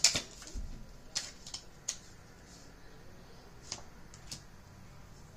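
Tarot cards being handled: a handful of light, sharp card clicks and taps spread over several seconds, over a faint room hum.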